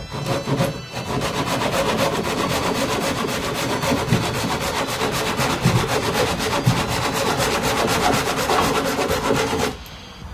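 Japanese pull saw cutting through an old wooden tool handle in quick, steady strokes, stopping sharply near the end as the cut finishes. The wood is riddled with woodworm, so the saw goes through it easily.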